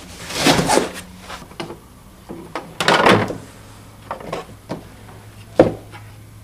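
Cardboard and plastic being handled in a lawnmower's shipping carton: scuffs and rattles as a loose plastic part is lifted out, with a louder rustle about three seconds in and a sharp knock about five and a half seconds in.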